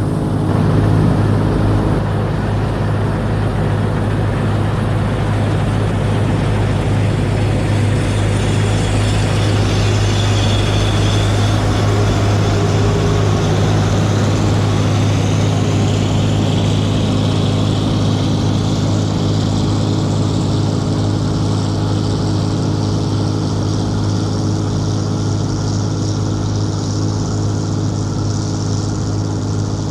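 Oliver 7300 combine running steadily while cutting wheat: a constant low engine drone with a higher hiss and whine above it that shifts slowly.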